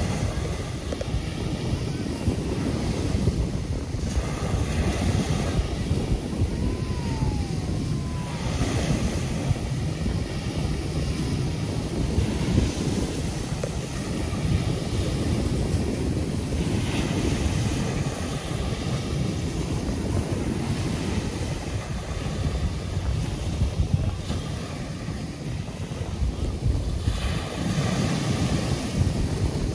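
Ocean surf washing onto a sandy beach, the waves swelling every few seconds, over a steady rumble of wind on the microphone.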